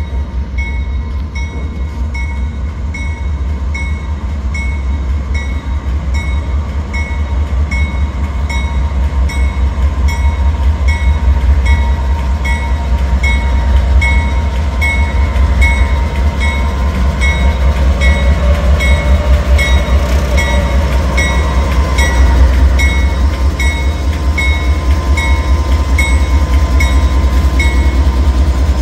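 Norfolk Southern diesel locomotive pulling slowly toward and past, its bell ringing steadily in evenly spaced strokes over the low rumble of its diesel engine, growing louder as it draws near.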